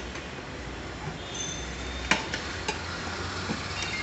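A few light metallic clicks and clinks, as of tools being handled, over a steady low hum.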